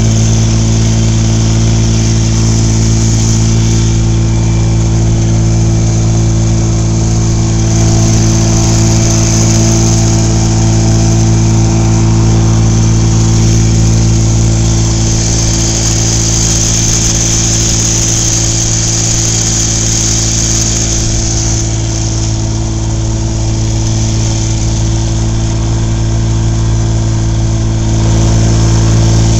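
A small boat's motor running steadily under way, its pitch holding constant, with a steady hiss over it.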